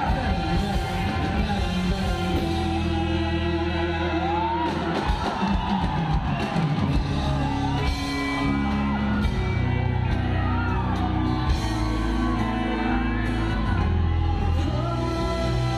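Live band playing a song over a concert PA: a male singer with acoustic guitar, backed by drums and electric guitar, with whoops and yells from the crowd.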